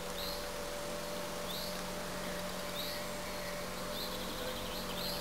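A bird repeating a short chirp every second or so, over a steady low hum.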